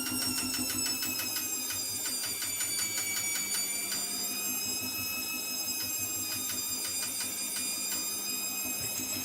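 Hotpoint WMBF742 washing machine motor whining as it turns the drum during the first spin, its pitch sinking slowly and then rising again about four seconds in. A fast clicking, several clicks a second, runs with it and dies away about four seconds in; this is the strange clicky noise the owner filmed.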